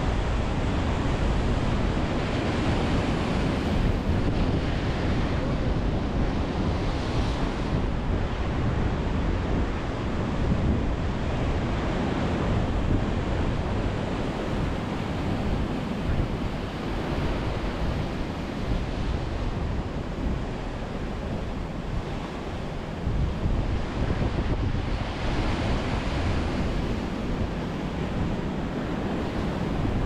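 Sea surf breaking and washing over a pebble shore and against concrete tetrapods, a continuous rushing wash that swells louder a few times. Wind buffets the microphone with a steady low rumble underneath.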